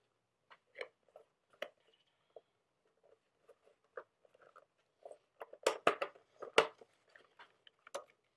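Funko Dorbz vinyl figure's box being opened and its packaging handled: scattered crinkles and light clicks, with a few louder crackles and snaps about two-thirds of the way through.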